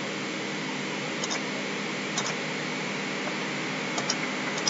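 Steady background hiss with a faint hum, broken by a few light computer mouse clicks, several of them in quick pairs.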